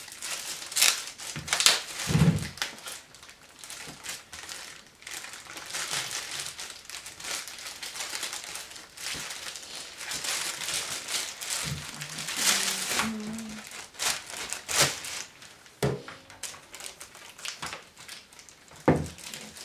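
Thin plastic bag crinkling and rustling as it is worked off a boxed computer speaker by hand, with a few sharper crackles and light knocks along the way.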